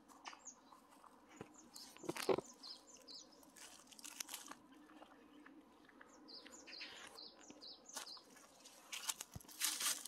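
Dry fallen leaves crunching and crackling underfoot in irregular steps, the loudest crunch about two seconds in, while small birds chirp in short series.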